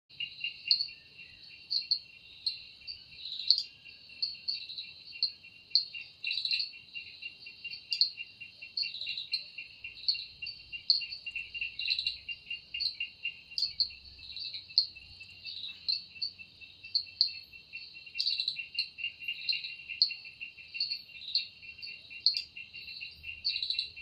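Cicadas calling: a fast pulsing buzz with sharper, higher chirps rising above it, one or two a second.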